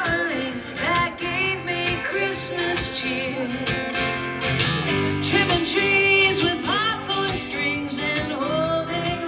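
Music: a song with a singing voice over acoustic guitar.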